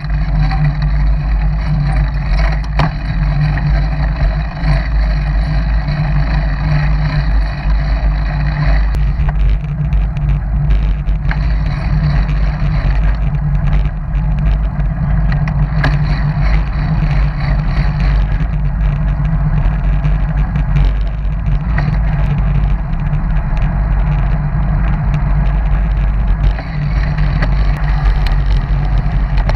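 Wind buffeting the microphone of a camera mounted on a moving road bike: a steady, heavy low rumble.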